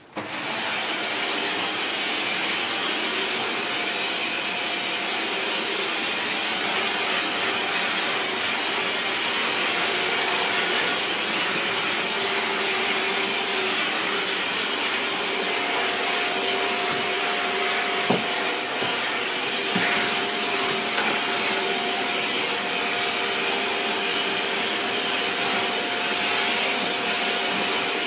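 Shark Powered Lift Away NV681UKT bagless vacuum cleaner switched on and running steadily, sucking through the dusting brush on its hose, with a constant hum over the rush of air. A couple of light knocks are heard a little past halfway.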